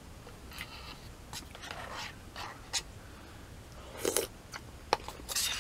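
Close-up mouth sounds of eating noodle soup: short, scattered slurps and chewing, with a louder cluster about four seconds in and a sharp click just before the end.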